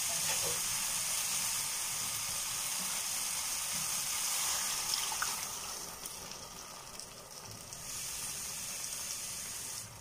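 Spiced tomato and chilli masala sizzling in oil in a steel pan; about halfway through, water is poured in and the sizzling drops to a quieter hiss.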